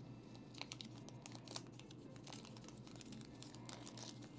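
Packing paper crinkling and rustling as a small wrapped part is unwrapped by hand, in faint, irregular crackles.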